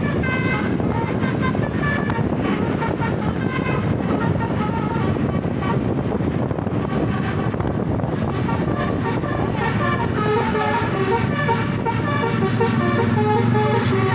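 Indonesian bus basuri telolet horn playing a tune of stepping notes over steady road-traffic noise; the tune grows louder and clearer in the second half.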